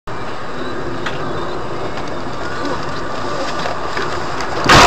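Steady road and engine noise of a car driving on a snowy road, heard from inside the cabin through a dash camera. Near the end a sudden, much louder burst of noise breaks in.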